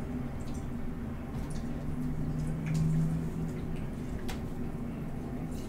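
A piece of fried chicken being pulled apart by hand: soft wet squishing and tearing with scattered small clicks, over a low steady hum that swells around the middle.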